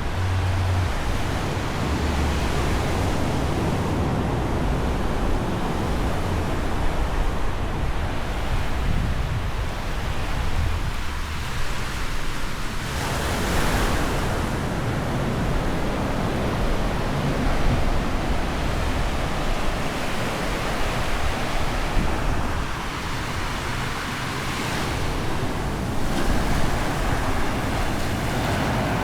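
Ocean surf breaking on a beach, a steady wash with louder swells as waves break about halfway through and again near the end, with wind rumbling on the microphone.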